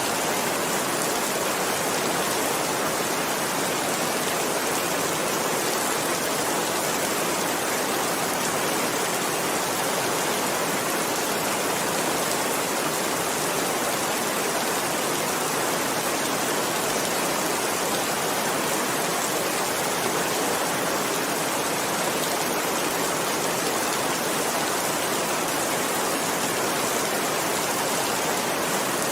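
Heavy rain falling steadily: an even, unbroken hiss with no single drops or thunder standing out.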